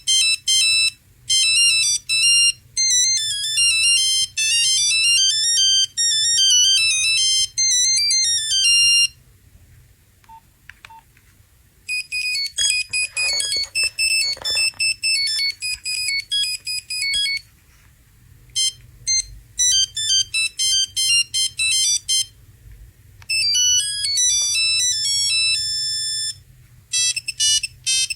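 Nokia mobile phone ringtones playing one after another: bright electronic beeping melodies, with short pauses between tunes.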